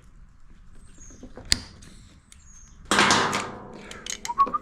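Workbench handling noises: a sharp click about a second and a half in, then a louder short clatter around three seconds. Near the end a man starts whistling a tune.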